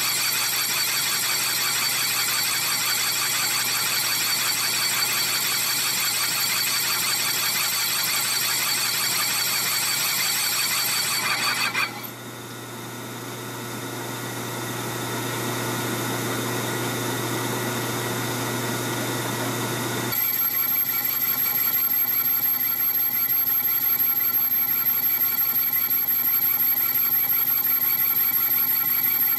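Metal lathe cutting a large steel clutch hub with a single-point tool, the cutter squealing against the metal with a high, many-toned whine. About 12 seconds in the squeal stops suddenly, leaving the lathe's lower running rumble and hum, and a high thin whine returns about 20 seconds in.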